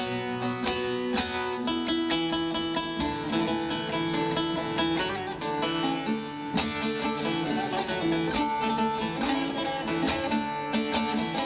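Instrumental break in a Turkish folk song: a plucked string instrument playing a quick run of notes.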